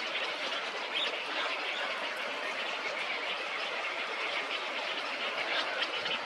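Rainforest ambience: a steady, dense chorus of birds and insects chirping.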